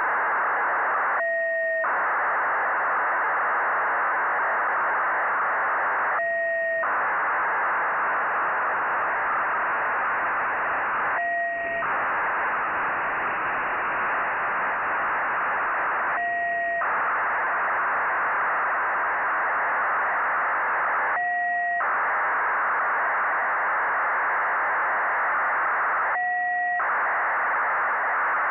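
Nayif-1 (EO-88) satellite's 1200 bps BPSK telemetry downlink coming through an SDR receiver: a continuous, even data hiss. About every five seconds it breaks for half a second, and two steady tones, one low and one high, sound in the gap.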